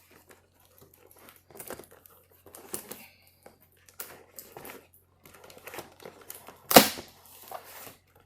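Cardboard and paper packaging of a keyboard box being opened by hand: scattered rustling, tearing and small clicks, with one loud sharp knock near the end.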